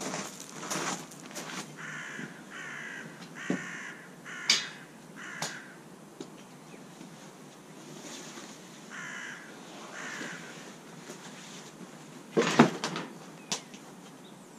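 A bird calling with short, harsh, crow-like caws, four in quick succession and then two more a few seconds later. Near the end comes a loud knock and rustle as a heavy rucksack is set down on paving slabs.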